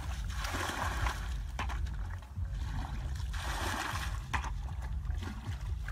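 Hands splashing and sloshing in shallow muddy water, in two bursts about three seconds apart, with a few small clicks, over a steady low rumble.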